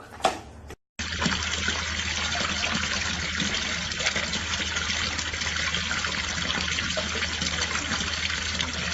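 Steady rush of running water, starting suddenly about a second in.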